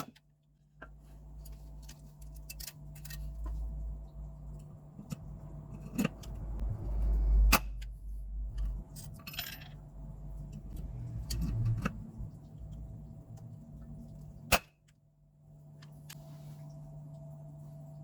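Small metal parts and a hand riveter being handled: irregular clicks, clinks and knocks over a steady low hum, with sharp clicks near the start and about two-thirds of the way in.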